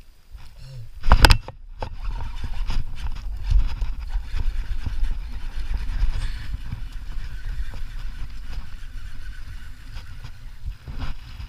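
A sharp knock about a second in, then a steady low rumble with many small irregular thumps: handling and rumble noise on a GoPro camera's microphone while a bass is hooked and reeled in.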